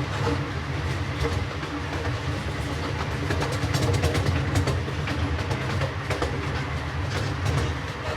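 Miniature railroad train running along its track, heard from aboard: a steady low rumble with scattered clicks from the wheels on the rails.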